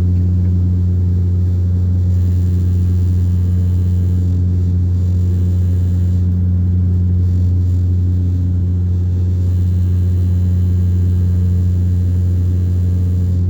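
Airplane engine running steadily in flight: a constant deep drone that holds the same pitch throughout.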